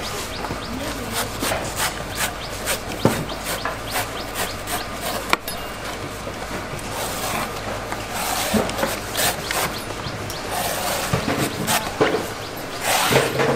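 Coconut husk being cut and shaved by hand with a blade: irregular rasping scrapes with sharp knocks, and a louder stretch of scraping near the end.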